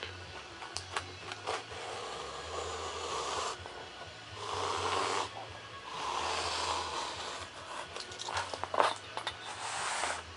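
Razor blade drawn through foam board along a steel ruler, making 45-degree bevel cuts: several long, scratchy cutting strokes, with small clicks and taps between them.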